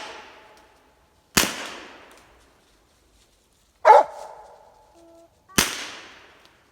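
Two gunshots about four seconds apart, each with a trailing echo, fired at a treed raccoon. A hound barks once between them.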